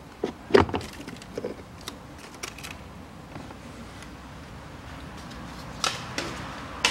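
Plastic clicks and knocks from the cabin air filter housing cover being unclipped and handled. There is a sharp snap about half a second in, a few lighter clicks over the next two seconds, and a few more clicks near the end.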